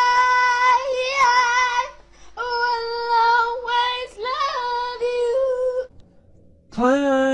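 A high-pitched singing voice holding long, steady notes in three phrases with short breaks. A shorter, lower held vocal sound comes near the end.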